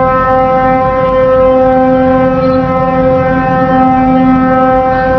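Warship's horn sounding one long, steady blast at a single pitch over a rough background rush.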